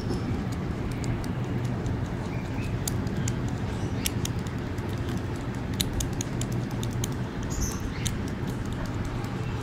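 Young domestic rabbits chewing fresh green leaves close up: quick, irregular, crisp crunching clicks, over a steady low background hum.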